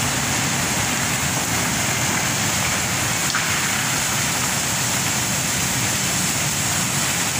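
Coal pouring steadily from a shiploader spout into a ship's steel cargo hold, an even, unbroken noise with a steady low hum underneath.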